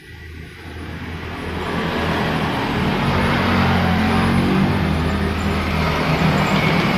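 70 mm 12-blade electric ducted fan of a foam Super Habu RC jet on a 3S LiPo spinning up: a rushing fan sound that grows louder over the first two seconds or so, then runs steadily.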